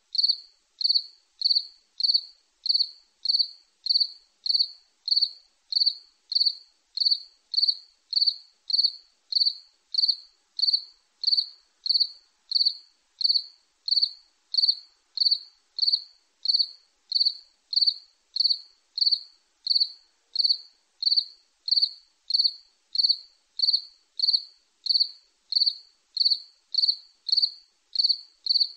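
Cricket chirping in an even, regular rhythm, nearly two short chirps a second, each at the same high pitch.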